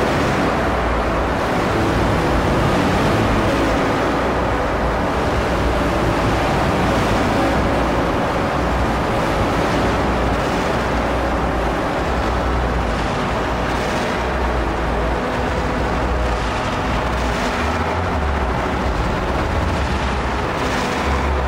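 Dense, steady noise drone from a live electronic rig: samples played on a Bastl MicroGranny sampler and run through effects pedals, a Boomerang looper and a Make Noise Strega. A deep rumble pulses irregularly under a wash of hiss and a few faint held tones.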